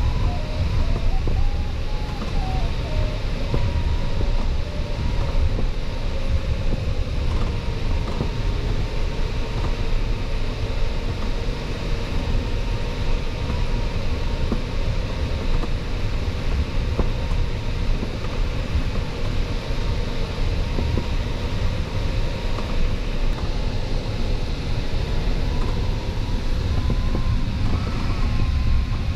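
Steady rush of airflow inside an LS3 sailplane's closed cockpit in gliding flight, heavy in the low end, with a faint thin tone that drifts slowly in pitch.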